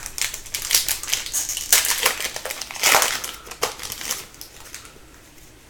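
Foil hockey card pack wrapper being torn open and crinkled, a dense run of crackling that fades out about four seconds in.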